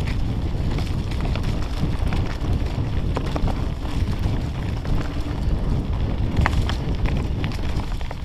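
Mountain bike rolling along a leaf-covered dirt trail, heard from the handlebars: heavy wind rumble on the microphone over tyre noise, with scattered sharp clicks and rattles.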